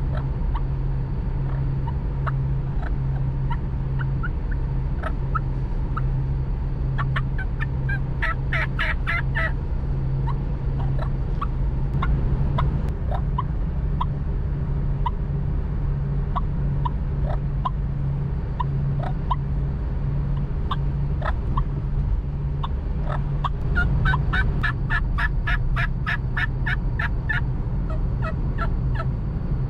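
Hen turkey calls made on a diaphragm mouth call: scattered single short notes, and two fast runs of evenly spaced notes, one about eight seconds in and a longer one near the end. Car engine and road noise hum steadily underneath, inside the cabin.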